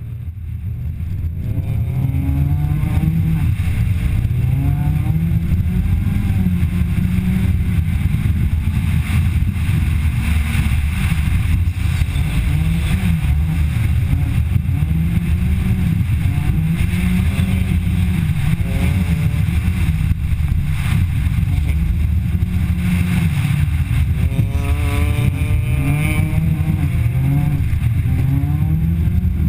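A Citroën DS3 R1 rally car's engine heard onboard, revving up and dropping back again and again as it is driven hard through the gears and corners, over a steady rush of tyres on loose dirt. The sound swells up in the first couple of seconds.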